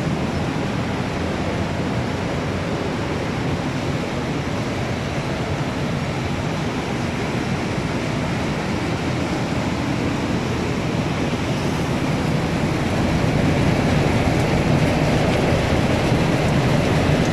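Akyurek cotton seed pre-cleaner running with cotton seed passing through it: a loud, steady mechanical rumble with a rushing hiss, getting a little louder after about twelve seconds.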